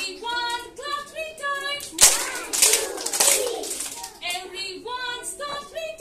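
A group of young children singing together in short, rhythmic syllables, with one loud hand clap about two seconds in.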